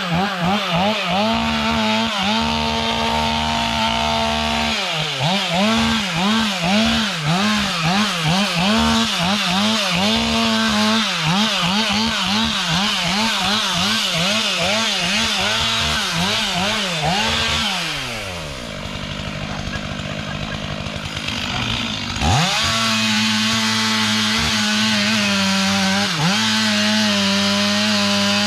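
Two-stroke chainsaw running at high revs, its pitch rising and falling again and again. About two-thirds of the way through it drops to idle for a few seconds, then revs sharply back up and runs steady.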